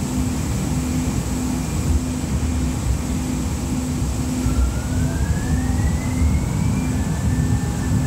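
Interior ride noise of a Siemens S200 light rail car under way: a steady low rumble of the running gear on the track, with a faint whine that rises in pitch over a couple of seconds from about halfway through.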